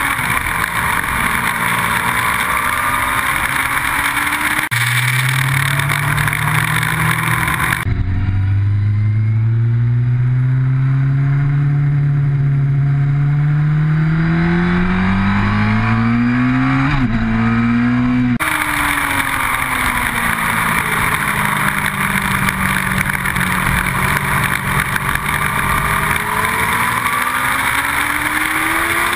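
Onboard sound of a sport motorcycle ridden hard on a race track: loud wind rush over the bike with the engine note rising and falling under it. Midway the engine pulls up in pitch for several seconds, with a quick gearchange near the end of that pull, and the sound changes abruptly a few times.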